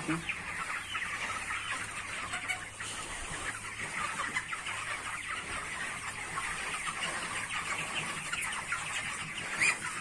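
A large flock of 29-day-old broiler chickens calling all at once, a dense steady chatter of many short, overlapping peeps and clucks.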